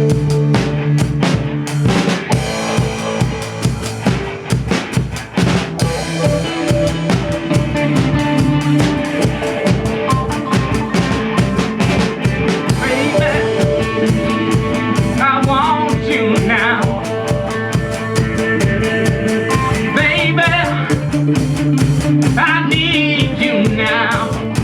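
A rock band playing an instrumental passage: the drum kit keeps a steady beat of kick, snare and rim hits under sustained bass and chord tones. About halfway through, a wavering high lead line comes in and returns near the end.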